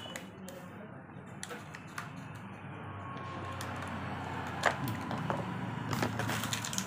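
Scissors snipping through a plastic blister pack of batteries, with crackling plastic and scattered clicks. A few sharper clicks come in the second half.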